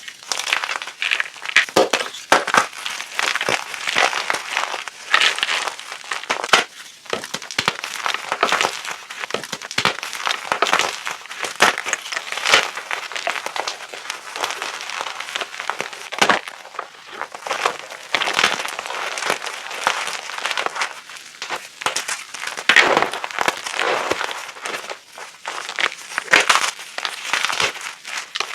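Blocks of gym chalk being crushed and crumbled by hand, with a dense, irregular crunching and crackling and sharper crunches here and there.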